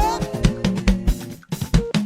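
Yoruba gospel band music: a drum kit plays with bass drum and snare strokes under held instrument notes as a sung line fades out at the start. The band drops out briefly about halfway through, then the drums come back in.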